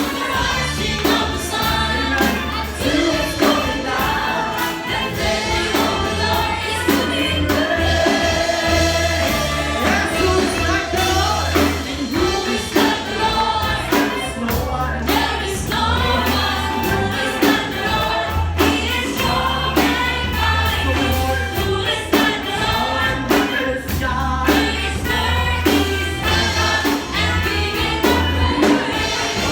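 Worship song with a group of singers over a band, with a steady bass line and a regular drum beat.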